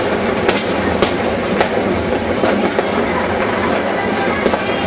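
Many fireworks and firecrackers going off at once: a dense, steady crackle with sharp bangs standing out every second or so.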